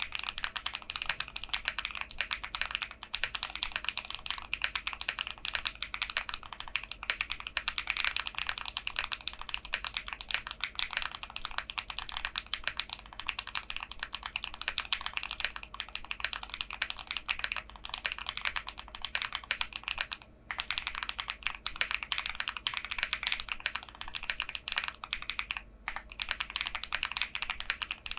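Haven TKL mechanical keyboard with Gateron Silyworks SLAY Type R switches and PBTFans Pyga keycaps being typed on quickly: a steady stream of keystroke clacks, with a brief pause about twenty seconds in.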